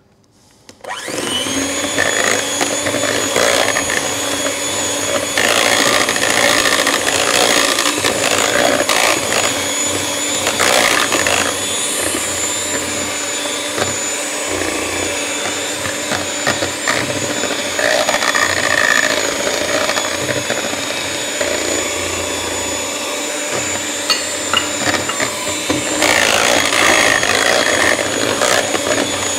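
Kenwood electric hand mixer switched on about a second in and running steadily with a whine, its beaters whisking sponge cake batter in a stainless steel bowl.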